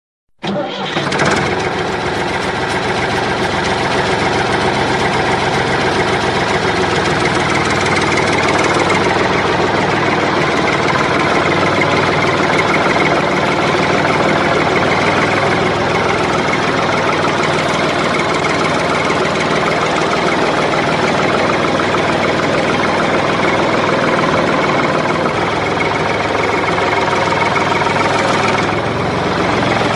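Tractor engine running steadily, cutting in abruptly just after the start and holding an even level throughout.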